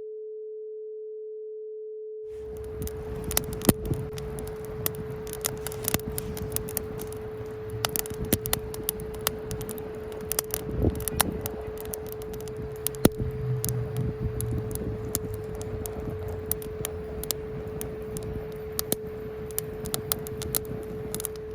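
A steady 432 Hz sine tone from a tone generator plays alone for about two seconds. Then a burning wood fire starts crackling under it, with many sharp pops and snaps, while the tone carries on.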